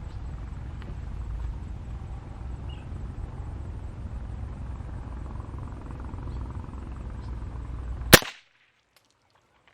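Steady low rumbling noise, then about eight seconds in a single sharp crack of a CMMG .22LR rifle shot, after which the sound cuts off suddenly.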